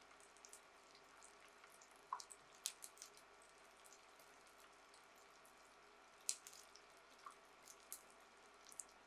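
Flour-and-aonori-coated tofu deep-frying gently in oil: a faint hiss with scattered, irregular crackles and pops, the sharpest about two and six seconds in.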